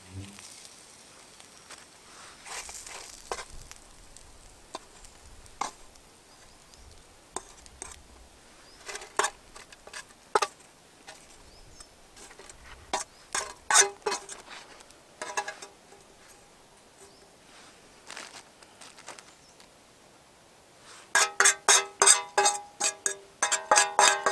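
Scattered light clicks and clinks, like camp cookware being handled. About three seconds before the end, plucked-string background music starts with a quick, even run of notes.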